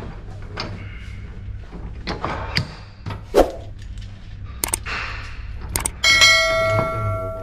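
Metal tools and parts knocking and clinking during engine work, then about six seconds in a piece of metal is struck or dropped and rings like a bell for over a second as it dies away.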